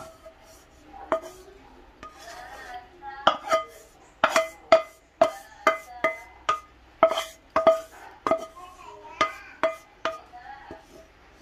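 Wooden spatula knocking and scraping against the rim of a metal frying pan while the sambal is scraped out onto a plate: a run of sharp, irregularly spaced knocks, about one or two a second, each with a short ring from the pan.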